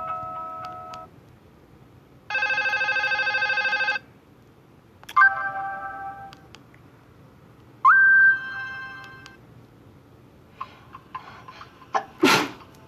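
A Nokia 150 mobile phone's loudspeaker plays short Nokia 6700 Slide ringtones one after another: first a steady buzzy tone, then a chime that fades, then a tone that slides up and holds. Each lasts a second or two, with a short gap between them. Several clicks and a louder knock come near the end.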